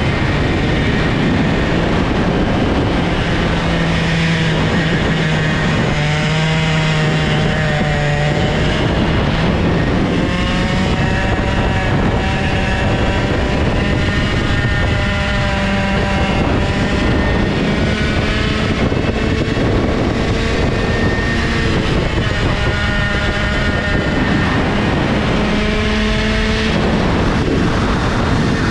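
Old IAME two-stroke kart engine at racing speed, its pitch climbing as it accelerates and falling back as it slows for the corners, several times over.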